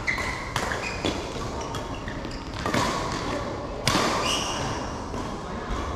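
Badminton rally: rackets striking the shuttlecock in a string of sharp hits, the loudest about four seconds in, with short squeaks from players' shoes on the court floor between them.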